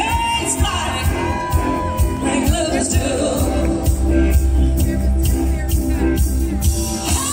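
Live band music with electric guitar over a heavy, steady beat with a strong low end, heard from the crowd in an arena. A melody note is held through the first two seconds, and a note slides up near the end.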